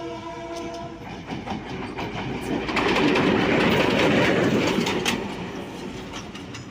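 GMCU-15 diesel locomotive 4909, running light, finishes sounding its horn about a second in. It then passes close at about 35 km/h, its engine and wheels loudest between about three and five seconds in, with wheels clicking over the rail joints.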